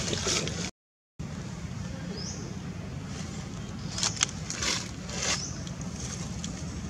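Outdoor background with a steady low rumble that cuts out completely for a moment about a second in. About four seconds in come three short crackling rustles of dry fallen leaves, and a faint rising chirp is heard earlier.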